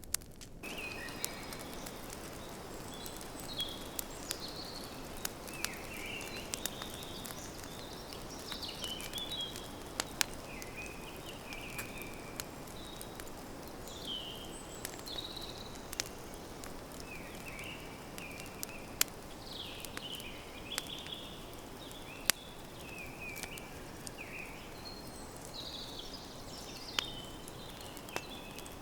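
Campfire crackling with scattered sharp pops over a steady hiss, while a bird sings short, repeated chirping phrases throughout.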